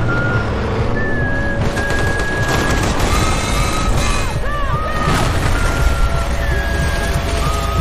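Film battle sound effects: rapid gunfire and explosion booms with a heavy low rumble, mixed under music whose melody is a line of high held notes changing pitch about every second.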